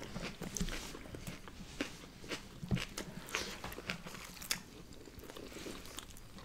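Close-miked eating of fast-food burgers and chicken nuggets: irregular wet mouth clicks, bites and soft crunches as several people chew.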